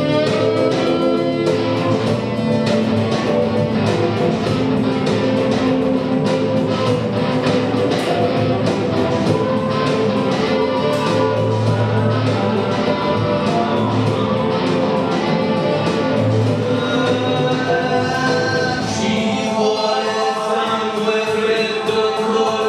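Live electronic pop song: electric guitar played over a programmed drum beat and synth backing, with a man singing.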